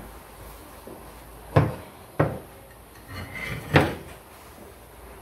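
Hard knocks of metal scooter clutch and pulley parts being handled and set down on a wooden workbench: two clunks close together, a short scrape, then a third loud clunk.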